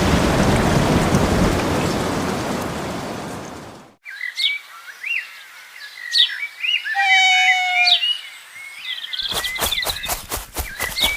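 Heavy rain that fades and stops abruptly about four seconds in, followed by songbirds chirping. Near the end comes a rapid run of even pulses.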